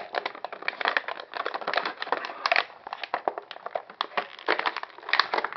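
Clear plastic packaging crinkling and crackling continuously as hands handle it and work headphones out of the wrap.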